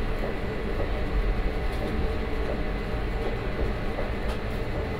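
Gornergrat Railway electric rack (cog) train running steadily along its rack track, heard from inside the driver's cab as a continuous low rumble.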